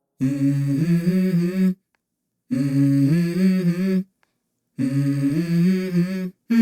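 Wordless hummed vocal melody from a hip-hop song, in three phrases of about a second and a half each with short breaks between them.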